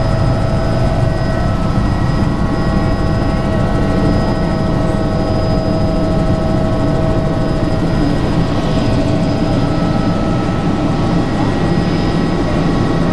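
Helicopter in flight heard from inside the cockpit: loud, steady engine and rotor noise, a low rumble with a steady high whine over it.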